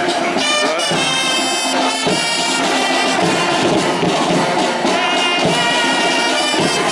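Marching drum-and-fife band playing: side drums and a bass drum beating a march under fifes piping a high tune.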